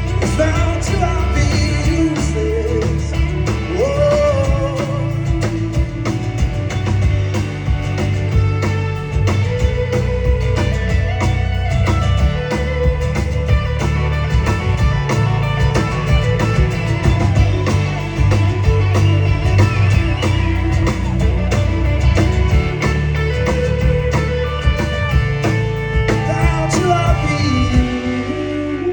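A live band plays the song's closing section, with guitar, bass and wordless sung or ad-libbed vocal lines over it, and the music stops shortly before the end.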